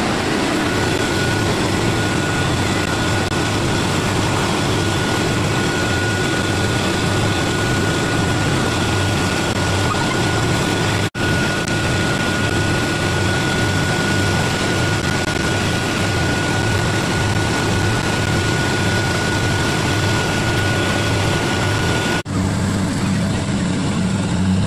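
Kubota Harvest King rice combine harvester running under load while it cuts paddy: a loud, steady engine and threshing-machinery noise heard close up from aboard the machine, with a thin steady whine over it. The sound cuts out briefly about 11 s in, and again about 22 s in. After the second break the harvester is heard from the field as a lower, steadier hum.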